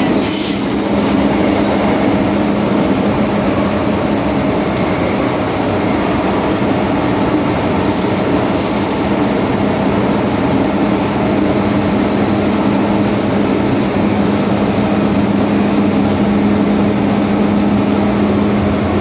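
MTR M-Train electric multiple unit running between stations, heard from inside the car: a steady rumble of wheels on the track with a continuous high whine. A brief hiss comes about eight or nine seconds in.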